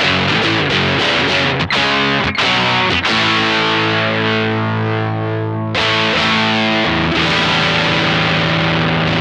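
Stratocaster electric guitar played through a Silver Keg fuzz pedal, giving a heavily fuzzed tone. Choppy strummed chords for the first three seconds, then chords struck and left to sustain, one fading before a new one rings out about seven seconds in.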